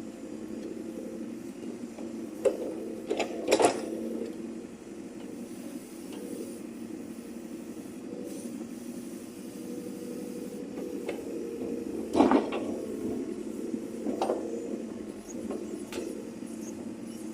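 Backhoe loader's diesel engine running steadily, with sharp knocks over it: a few close together about three seconds in, and a loud one about twelve seconds in.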